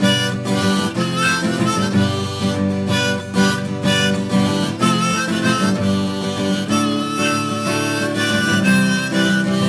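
Instrumental break of a lo-fi folk-rock song: a harmonica playing a wavering melody over strummed acoustic guitar.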